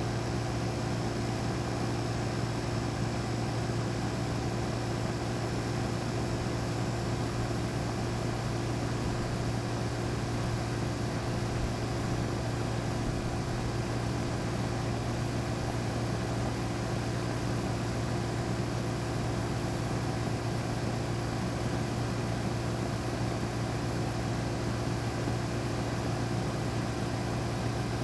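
Outdoor air conditioner unit running steadily: a constant low hum with an even rushing noise over it.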